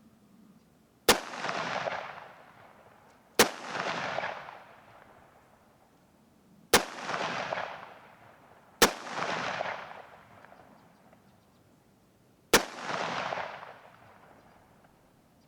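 Five single rifle shots fired in semi-automatic at an uneven pace, a second or more apart, each crack followed by about a second of echo rolling off.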